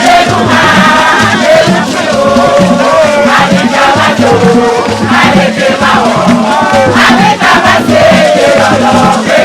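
A crowd singing a jama chant together over steady rhythmic percussion.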